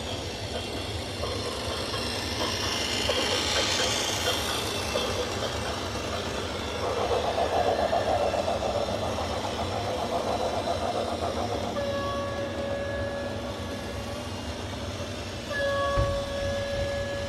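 Heavy rumbling vehicle noise with a long, single-pitched horn blast in the last third, followed by a second blast near the end.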